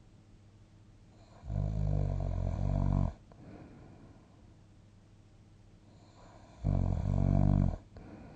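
A sleeping person snoring: two long, low snores about five seconds apart, each lasting over a second, with soft breathing between them.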